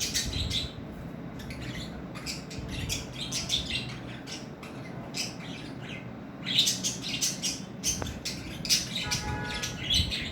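Several budgerigars chirping and chattering in quick, overlapping calls, busiest in the last few seconds.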